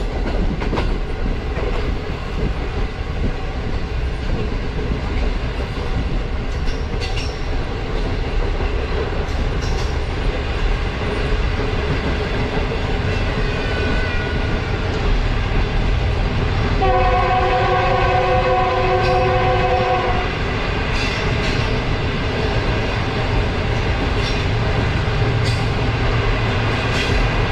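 Moving passenger express train running steadily on the rails. A train horn sounds once for about three and a half seconds, a little past the middle.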